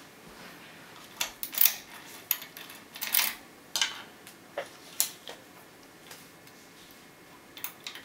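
Sharp metallic clicks and clinks of a key and lock-picking tools being handled at a brass Bricard Pratic euro cylinder clamped in a vise: a dozen or so separate clicks over about four seconds, a pause, then a few small clicks near the end as a pick goes into the keyway.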